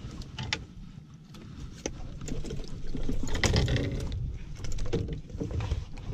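Irregular knocks, clicks and rustling aboard a small fishing boat over a low rumble, busier from about two seconds in.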